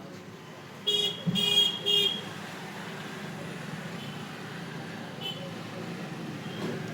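A vehicle horn honking three times in quick succession about a second in, over steady traffic noise, with a few fainter honks later on.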